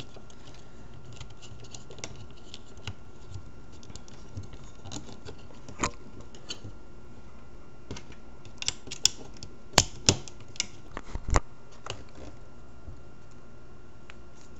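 Scattered small clicks and taps of plastic and metal parts being handled and fitted as the trigger goes into a Crosman PumpMaster 760 air rifle's receiver. A cluster of sharper clicks comes a little past the middle.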